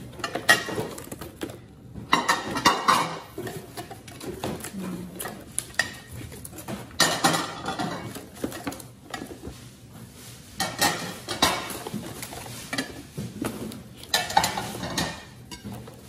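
Hands handling a stack of porcelain dinner plates in a cardboard box: star-shaped cardboard separators rustle and scrape as they are lifted off, with plates knocking and clinking, in several separate bursts a few seconds apart.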